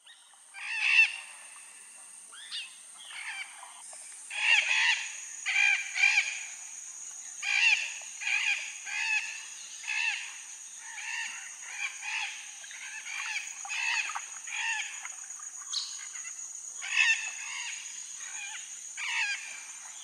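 Parrots squawking: harsh, rasping calls repeated about twice a second, with short pauses, starting abruptly.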